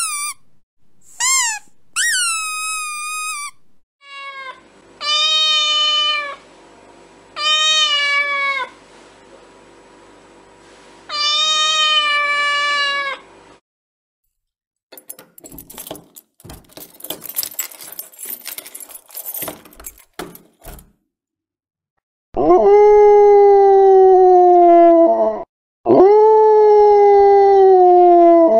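A run of cat-like sounds: a few short high squeaks, then three falling meows, several seconds of scattered crackling clicks, and two long, loud falling meowing cries near the end.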